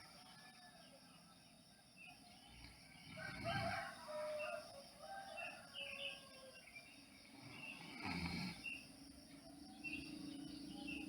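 Small birds chirping in short repeated calls. Two soft low rushes, about three and a half and eight seconds in, fit a sleeper's slow breaths.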